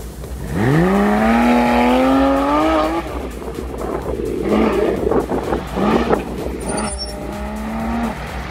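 Porsche sports car engine accelerating hard, its pitch climbing steadily for about two and a half seconds, then several shorter revs and lifts.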